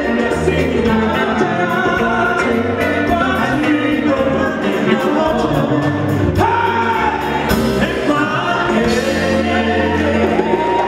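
Live gospel music: male lead vocals sung into microphones over a band with bass guitar, drum kit and congas, with backing singers, and a steady beat.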